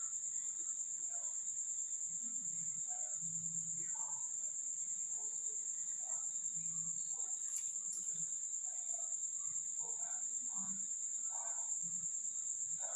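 A cricket trilling steadily at a high pitch, with faint indistinct background sounds and a couple of light clicks about two thirds of the way through.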